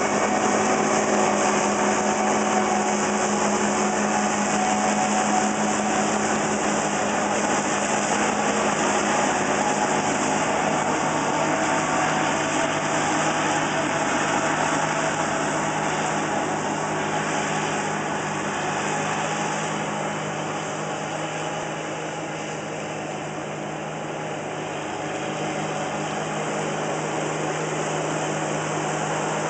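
New Holland CS 6050 combine harvester running steadily while harvesting rice: a steady engine hum over a broad machinery noise, which drops slightly in pitch about halfway through.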